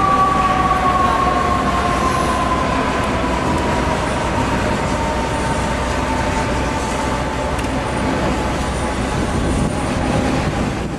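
Fire engine's mechanical siren winding down after a brief blip, its whine falling slowly and steadily in pitch over about ten seconds, over the steady rumble of city traffic and idling engines.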